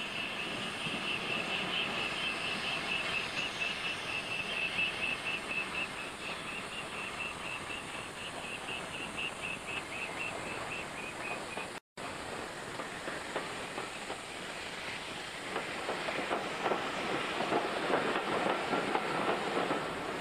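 Steam-hauled passenger train drawing up and passing close by, with a high, rapidly pulsing squeal over the first half. Later its coaches roll past, their wheels clicking over the rail joints and growing louder near the end.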